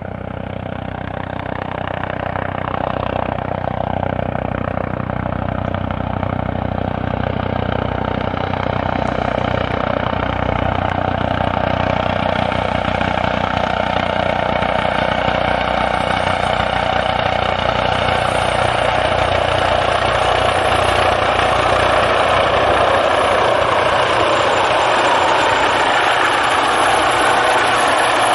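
Eurocopter EC155 (Airbus H155) helicopter coming in to land, its rotors and twin turbines growing louder as it closes in to a low hover. A thin high turbine whine comes in about halfway through.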